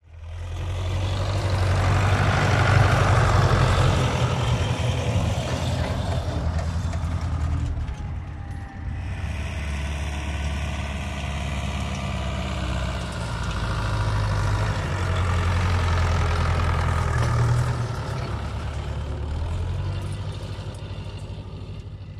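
Farm tractor's diesel engine running steadily under load while pulling a seed drill, a low engine note with a hiss above it. It dips briefly about eight seconds in, then carries on.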